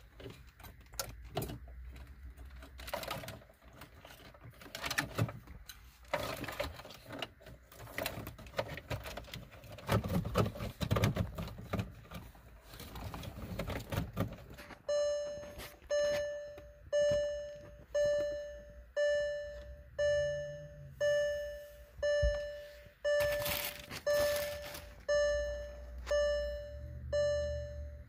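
Clicks and rustling as wiring connectors are plugged into the metal-cased head unit and it is handled into the dash. From about halfway through, a car's warning chime dings about once a second, each ding fading away.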